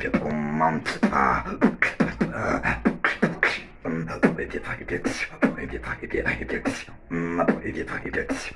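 Solo human beatboxing of an inward bass pattern: low buzzing bass notes set against sharp, fast snare and hi-hat clicks in a steady rhythm, with longer held bass tones just after the start and again near the end.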